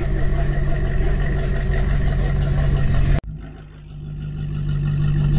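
A rat-rod hot rod's engine running as the car rolls slowly past, a steady low engine note. The sound breaks off abruptly about three seconds in, then comes back and grows louder.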